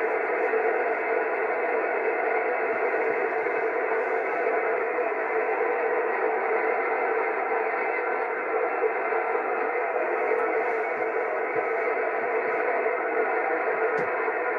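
Steady static hiss from a CB radio's speaker on an open 27 MHz channel, with no station answering the CQ call. A faint click comes about four seconds in and another near the end.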